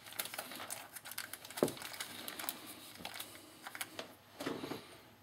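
Clear plastic bag crinkling in a rapid scatter of small crackles as it is wrapped over the open end of a power steering hose and fastened with a rubber band. A single dull knock about a second and a half in.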